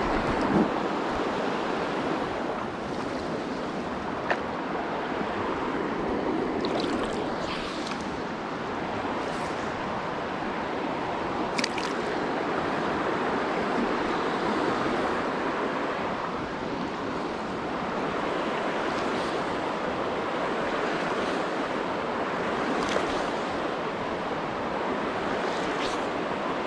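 Shallow river rushing over a rocky bed: a steady wash of running water, with a few brief clicks scattered through.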